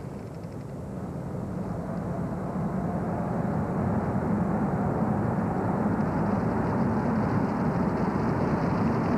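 Car engine and tyre noise heard from inside the moving car, growing louder over the first few seconds as the car picks up speed, then holding steady.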